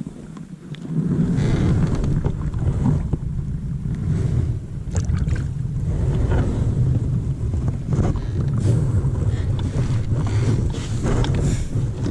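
Wind buffeting the microphone, a loud low rumble that starts about a second in and carries on steadily, with a few light knocks and rustles from handling on the kayak.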